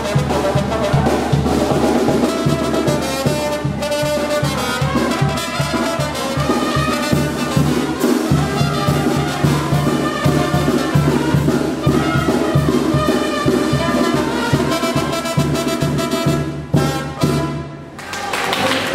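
Brass band dance music, trumpets and trombones over a steady pulsing bass beat, which fades and breaks off near the end.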